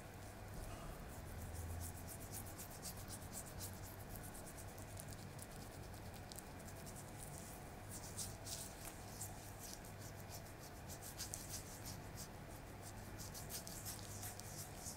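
Quick scratchy strokes over a customer's face and skin, coming in clusters, as a barber works on a shave and face treatment.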